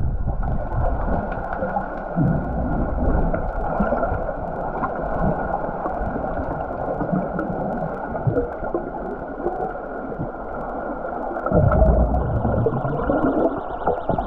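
Muffled underwater sound of a pool recorded from below the surface: a dense rush of bubbling and churning water from swimmers kicking and grappling, swelling into a heavier low rumble about twelve seconds in. A faint pulsing tone comes in near the end.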